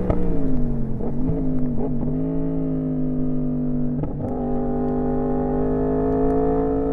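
Yamaha R1M's crossplane inline-four engine coming off the throttle with falling pitch, with short upward blips about one second, two seconds and four seconds in, typical of auto-blipped downshifts. It then runs steadily, its pitch creeping slowly up.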